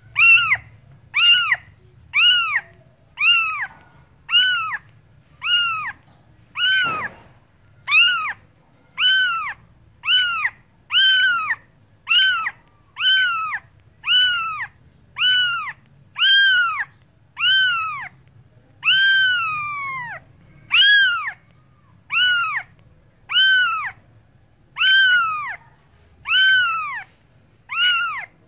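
A cat meowing over and over, one short high meow about every second, each rising and then falling in pitch.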